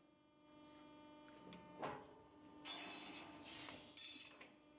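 Hydraulic guillotine shearing machine (6 × 4000 mm, CNC controlled) running through a cutting stroke: its hydraulic pump hums steadily, a sharp metallic clank comes about two seconds in as the hold-down cylinders clamp the steel sheet, then noise of the blade stroke follows over the next couple of seconds.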